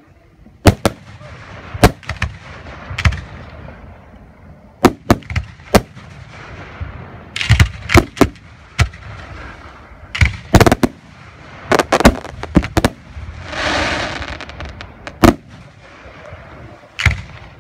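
Aerial firework shells bursting overhead, one sharp boom after another at irregular intervals, several in quick pairs, with crackling and hissing between the bangs. A longer hissing stretch comes about fourteen seconds in.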